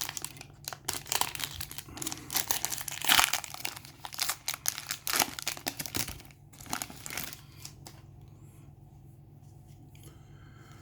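Trading-card pack wrapper being torn open and crinkled in the hands, a dense run of crackling that stops about seven seconds in, leaving a faint low hum.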